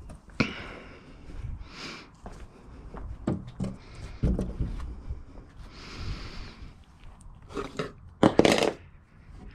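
Handling noise from carpet and plywood panels: fabric rustling and rubbing, wood knocking and scraping, in irregular bursts with a louder rustle near the end as scissors are worked in the carpet.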